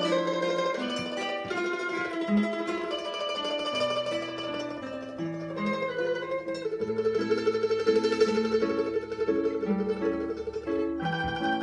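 Mandolin and classical guitar playing a duet, the guitar plucking bass notes under the mandolin's line. From about seven seconds in, one note is held as a rapid tremolo.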